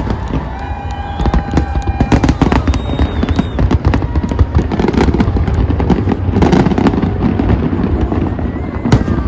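A fireworks display going off in quick succession: a dense run of sharp bangs and crackles over a steady low rumble.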